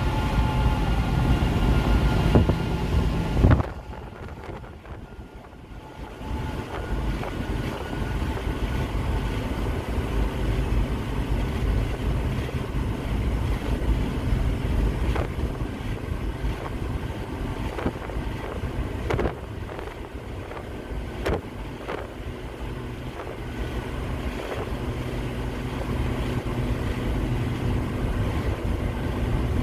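Steady road and engine noise heard inside a Volkswagen Eurovan cruising at highway speed, with a few faint knocks. About three and a half seconds in the noise drops off suddenly, then builds back up over a few seconds.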